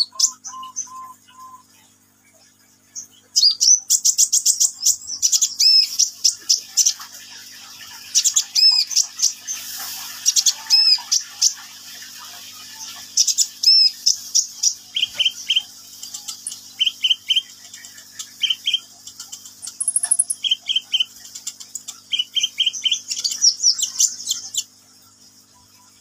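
Caged male purple-throated sunbird (kolibri ninja) singing vigorously: a long run of rapid, high-pitched chirps and trills, with short groups of lower repeated notes in the second half. The song starts about three seconds in and stops just before the end, over a faint steady hum.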